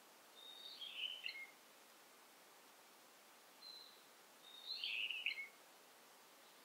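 A songbird singing two phrases, each a thin high whistle followed by a quick warble falling in pitch, over a faint steady forest hiss.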